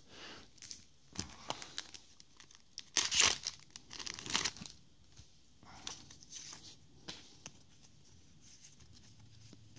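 Foil trading card booster pack being torn open and its wrapper crinkled. The loudest rip comes about three seconds in, with a second burst of crinkling a second later and lighter rustles after.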